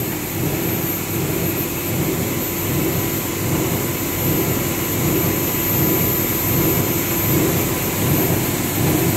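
PP meltblown fabric machine running: a steady, even mechanical noise with a thin high whine over it.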